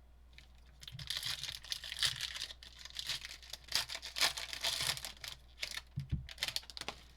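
Foil trading-card pack wrapper crinkling and tearing as it is opened by hand: a run of crackly rustling from about a second in until near the end.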